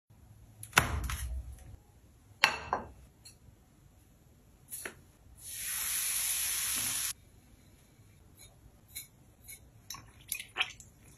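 Hot oil ladled over sesame seeds and chili seasoning in a ceramic dish, sizzling loudly for about a second and a half, halfway through. Before it, a couple of knocks as a foil-lined baking tray is handled on the counter; after it, a few light clicks as soy sauce is poured in.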